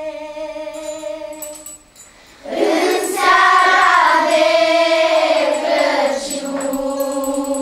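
Children's choir singing together in long sustained lines. The singing drops away briefly about two seconds in, then comes back louder with long held notes.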